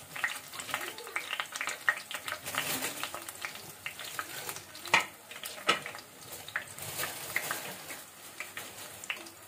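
Bachka (a green-chickpea and rice-batter fritter) sizzling and crackling in hot oil in a pan, fried through and ready to lift out. A few sharper clicks stand out, the loudest about five seconds in.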